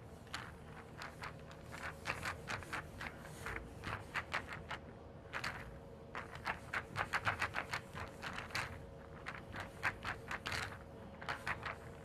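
Pool balls rolling and clacking against one another, in quick runs of sharp clicks that come in clusters, busiest in the middle and again near the end. A faint steady hum sits underneath.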